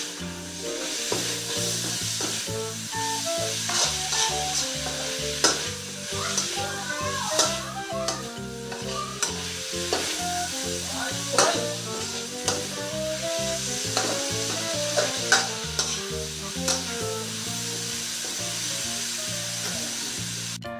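Chinese chives and shrimp sizzling in a hot wok while a metal spatula stirs them, scraping and knocking against the pan at an irregular pace.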